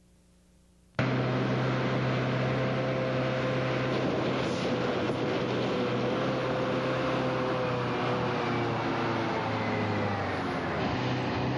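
Caterpillar mining haul truck's large diesel engine running steadily with a deep drone, cutting in suddenly about a second in, its pitch sagging slightly later on.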